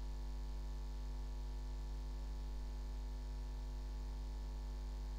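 Steady electrical mains hum: a low drone with many evenly spaced overtones.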